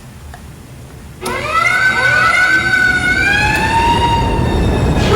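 SAMPO AM-A36V fire-alarm broadcast unit sounding its siren: about a second in, a loud siren tone starts, sweeps upward in pitch and then holds with a slight waver.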